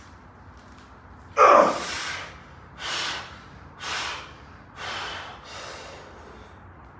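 A weightlifter's forceful breath out about a second and a half in, as he stands up out of a heavy barbell back squat. Four more heavy breaths follow about a second apart, each quieter than the last, as he catches his breath between reps.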